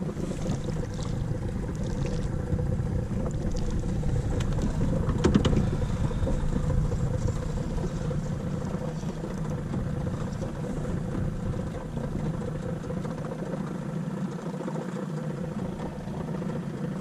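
Outboard motor of a small aluminium boat (a tinny) running steadily under way, with water rushing along the hull. A few sharp clicks come about five seconds in.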